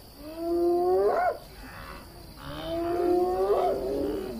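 Spotted hyena whooping: two long, low calls, each sweeping sharply upward at the end, a rallying call summoning the clan for support.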